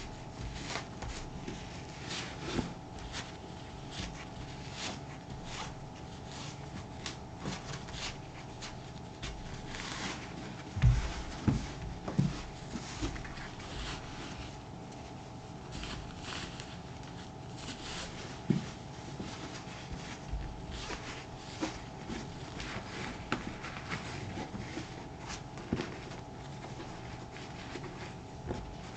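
Scrubbing a black leather Thorogood moc-toe boot with saddle soap: many short, irregular rubbing strokes, with a few soft knocks about 11 and 12 seconds in. A faint steady hum sits underneath.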